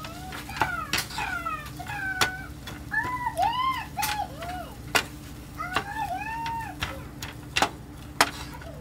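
A high-pitched voice making short, arching, rising-and-falling calls, in two runs about three and six seconds in, over scattered sharp clicks and knocks.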